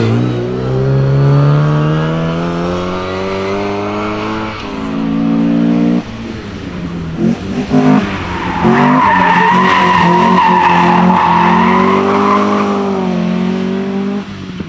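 Historic rally car engines at full throttle. One car's engine pitch climbs for about four seconds as it pulls away, then drops at a gear change. A second car's engine follows, and its tyres give a long, steady squeal for about four seconds as it takes a tight bend.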